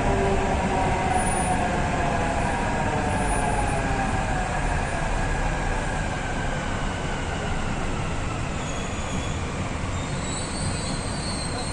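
Hyderabad Metro train running, heard from inside the carriage: a steady rumble and rush with a whine that falls in pitch over the first six seconds or so.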